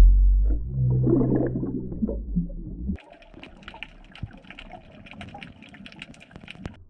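Water churning and bubbling around an underwater camera, loud and low, fading over the first three seconds; then it cuts abruptly to the quieter underwater background, a steady crackle of many fine clicks.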